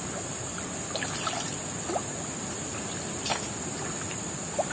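Steady trickle of river water over a constant high insect drone, with a few brief faint clicks.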